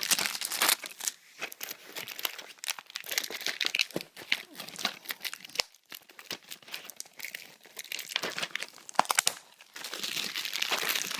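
Packaging around a film disc set being torn open and crumpled by hand: an irregular stream of crinkles, crackles and short rips.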